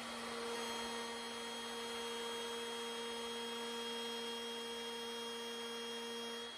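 Wood router running steadily at full speed after spinning up, a steady high-pitched whine with a lower hum beneath. Near the end the lower part of the hum drops away while the high whine carries on.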